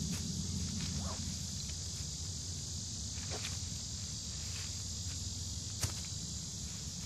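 Footsteps on dry leaf litter and scattered clicks from the stick-and-twine boat frame as it is lifted and tilted by hand, over a steady high insect drone; one sharp click about six seconds in.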